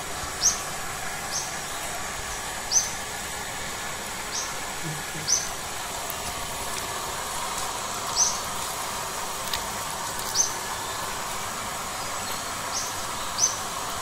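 Steady rush of water pouring from a garden hose into a plastic basket, with short high chirps every second or two over it.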